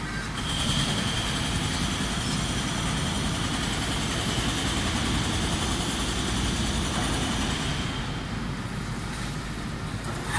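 A steady mechanical rumble with a high, steady whine over it; the whine sets in about half a second in and fades near the end.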